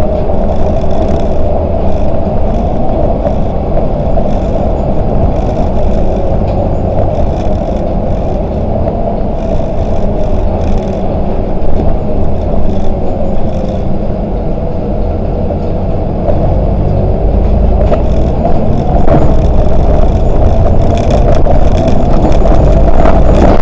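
Volvo 8900LE three-axle city bus driving, heard from on board: engine and drivetrain running with a steady whine over low road rumble and light rattles, getting a little louder near the end.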